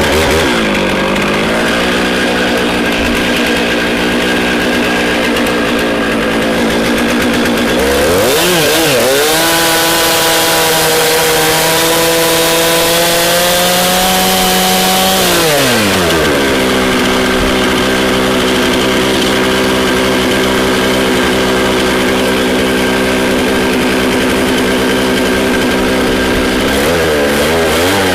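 Two-stroke chainsaw running at part throttle. About eight seconds in it revs up and holds high speed for about seven seconds, cutting through a firewood log to shorten it to stove length, then drops back. It briefly revs again near the end.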